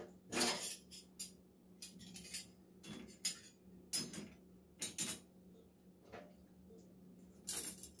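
Stainless-steel spoons, ladles and spatulas clinking and rattling as they are laid one by one into a dishwasher's top cutlery rack: a string of separate clinks, about ten in all.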